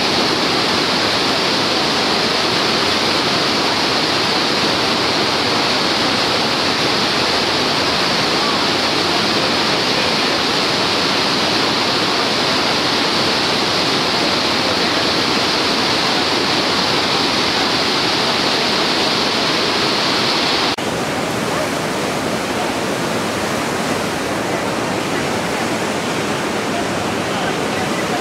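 Steady roar of Niagara Falls' water pouring down and churning in the river below. About three quarters of the way through it suddenly becomes a little quieter and less hissy.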